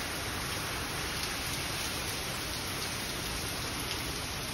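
Steady rain falling on a garden walkway and shrubs, with water running off the roof edge.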